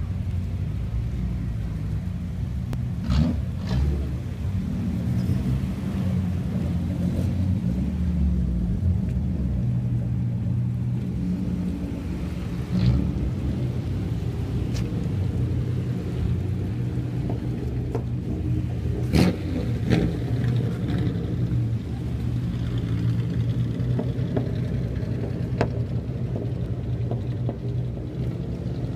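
Old Nissan sedans (430 Cedric, 230 Laurel) fitted with loud aftermarket mufflers, running at low speed with a deep steady exhaust rumble, broken by a few short sharp cracks.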